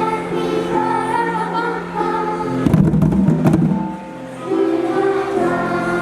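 Music with voices singing long held notes. About halfway through, a short noisy burst with a few clicks breaks in, and the music drops away briefly before resuming.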